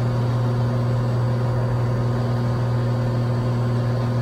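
Cessna 182's six-cylinder piston engine and propeller during the climb-out after takeoff, heard inside the cabin as one steady low drone that holds its pitch throughout.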